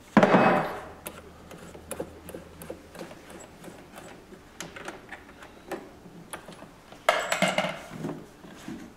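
Metal clinks and clatter of hand work on the valve's locking nut at the Kaivac 1750's control panel: a loud clatter right at the start, faint ticks, then a longer scraping clatter about seven seconds in.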